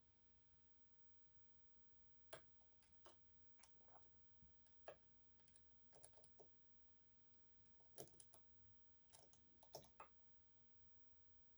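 Faint, irregular small metallic clicks of a short hook pick and tensioner working the unsprung sliders inside an EVVA 3KS high-security lock during picking. The clicks start about two seconds in and come singly or in small clusters.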